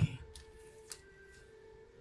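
Faint ambient background music: a steady held tone, with a soft click or two.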